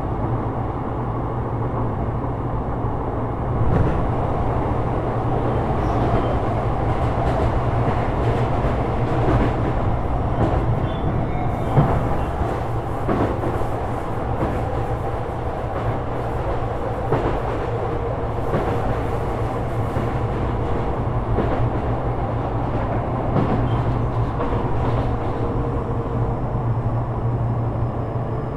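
Sotetsu 12000 series electric train running at speed: a steady low rumble and hum, with occasional clacks from the wheels over rail joints.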